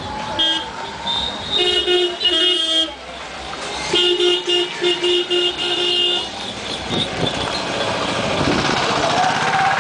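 Street traffic with vehicle horns honking in runs of short toots, several quick blasts at a time. Near the end a motor vehicle passes close, its engine rising in pitch.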